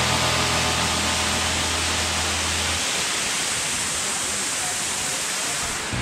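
Waterfall rushing close by, a steady full hiss of falling water. A low held music note dies away about three seconds in.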